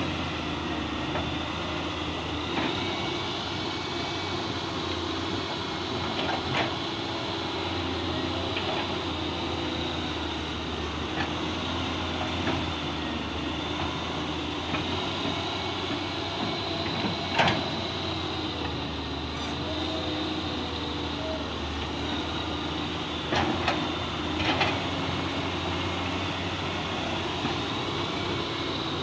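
Fiat-Hitachi FH150W-3 wheeled excavator's diesel engine running steadily while it digs, its pitch shifting slightly with the load. A few sharp knocks sound over it, the loudest a little past halfway.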